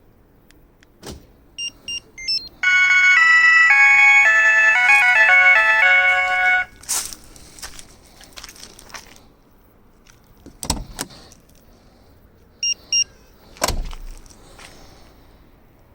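Car alarm sound module: a few short electronic beeps, then a loud electronic tune of stepping notes lasting about four seconds. Later come several sharp clicks and another pair of short beeps.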